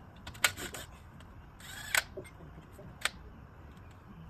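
Several sharp metallic clicks and a short rattle, from tools and metal parts being handled: three distinct clicks about a second apart, with a brief rattle just before the middle one.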